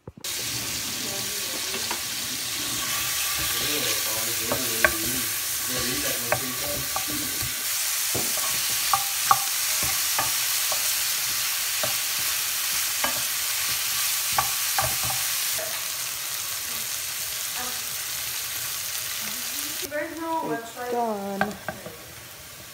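Sliced hot dogs with onion, jalapeño and tomato sizzling in a frying pan while a wooden spoon stirs them, tapping and scraping against the pan. The sizzle drops near the end.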